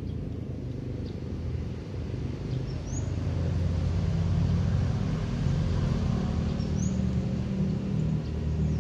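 Low, steady rumble of a nearby motor vehicle's engine, growing louder a few seconds in. A bird's short rising chirp comes twice, about four seconds apart.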